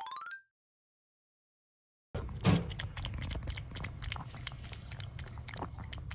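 A short rising sound effect, then dead silence for about a second and a half. Then a Pomeranian laps milk from a bowl: quick wet tongue clicks and smacks, with one louder knock shortly after the lapping starts.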